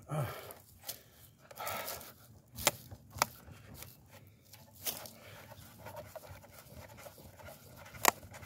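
A man breathing hard and straining while he works a wooden post loose from the ground, with a few sharp clicks and knocks scattered through, the loudest near the end.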